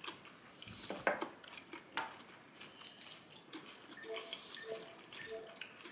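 Metal cutlery clinking and scraping against ceramic dishes while food is served at the table, with sharper clinks about one and two seconds in.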